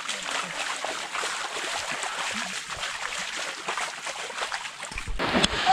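Rain runoff flowing in a shallow sheet down a flooded lane, a steady hiss of moving water. There is a short low thump near the end.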